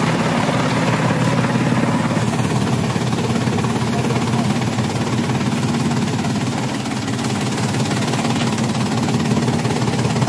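Electric chaff cutter (kutti machine) running under load, its motor-driven blades chopping hand-fed fodder: a steady mechanical din over a low hum.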